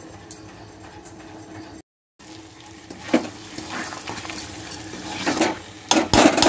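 A spatula scraping and stirring through chicken frying in a steel kadhai, with a steady faint sizzle underneath. The scrapes come one at a time, then a louder run of scrapes near the end.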